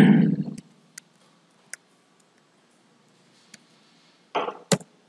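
A few sparse computer keyboard key clicks as a word is typed, isolated sharp clicks a second or two apart with a louder one near the end. It opens with a short noisy burst that dies away within about half a second.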